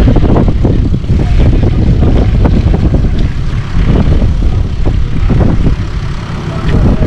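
Wind buffeting the microphone: a loud, rumbling, crackling roar that rises and falls unevenly.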